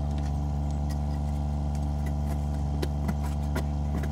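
1.5-tonne mini digger's diesel engine idling steadily, with a few short knocks and scrapes of a spade in the trench near the end.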